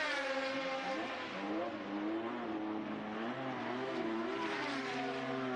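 Formula One racing car engine at high revs going through a corner. Its pitch drops steeply at the start, as the car slows, then rises and falls several times through the middle.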